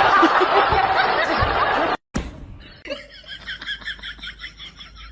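A loud, dense noisy stretch that stops abruptly about two seconds in, followed from about three seconds in by someone laughing in quick, even bursts, about four or five a second.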